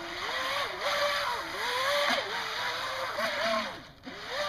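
Electric motor of an NQD RC jet boat whining, its pitch rising and falling with the throttle over a steady hiss of water, dropping away briefly near the end. The motor bearings are rusty from water that got into the hull, which the owner says makes it sound awful.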